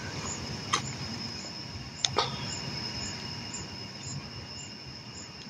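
Night insects chirping: a steady high trill with a faint pulse about twice a second, and two brief clicks in the first half.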